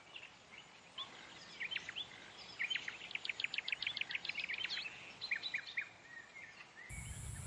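Birds chirping, with a fast run of repeated high chirps, about nine a second, in the middle.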